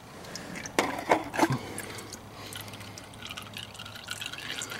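Engine oil draining from a Polaris Sportsman 500 HO's crankcase drain hole and dripping into a drain pan, with a patter of drips that thickens from about three seconds in. Three sharp knocks sound about a second in.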